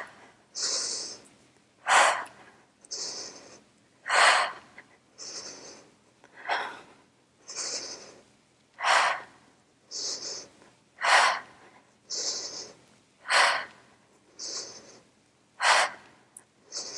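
A woman breathing hard through a set of single-leg dumbbell rows, in an even rhythm: a stronger breath about every two seconds, with a softer, hissier breath between each pair, keeping time with the repetitions.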